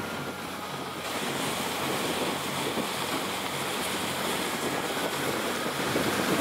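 Steady rushing wind noise on the microphone, growing a little louder and brighter about a second in.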